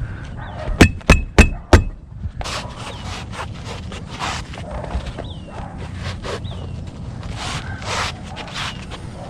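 Four quick hammer strikes with a ringing tone, about a third of a second apart, then scraping and rubbing as roof tiles are handled and slid.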